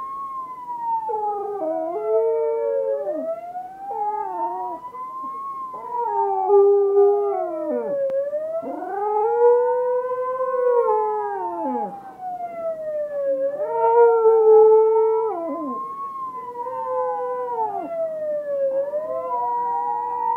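A cocker spaniel howling along to an ambulance siren. The siren wails slowly up and down, about every five and a half seconds. The dog's drawn-out howls rise and fall beneath it, several in a row with short breaks between them.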